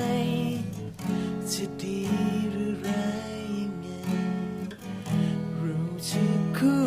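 Guitar-led song music: strummed guitar chords with held notes.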